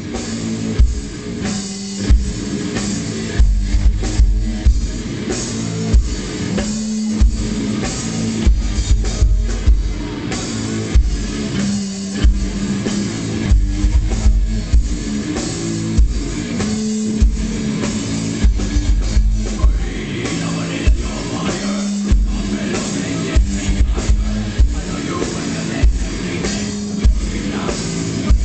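Metalcore band playing live: distorted electric guitars and bass over a pounding drum kit, with bursts of heavy low chugging and bass drum recurring every couple of seconds.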